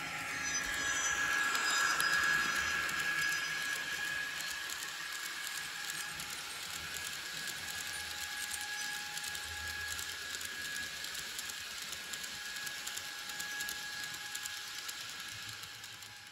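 N-scale Fleischmann model of the DB class 1600 electric locomotive with DCC sound running past with a train of hopper wagons: a steady electric whine over the fine clatter of small wheels on the track. Loudest about two seconds in as the locomotive passes closest, fading near the end as the train moves off.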